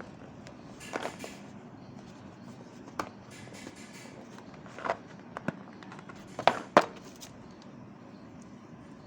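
Handling of a trimmer's box and packaging: a scattering of sharp clicks and knocks over a steady low background, the loudest a close pair about six and a half seconds in.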